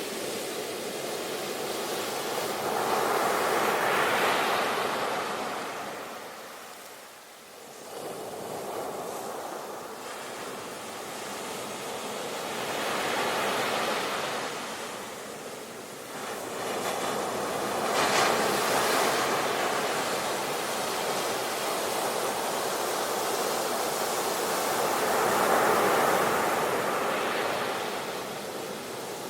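Ocean surf: waves swelling and breaking in slow surges, four of them, with a brief lull about seven seconds in.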